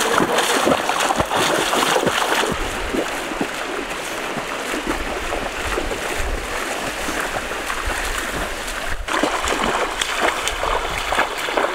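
Shallow river water rushing and splashing as someone wades through it.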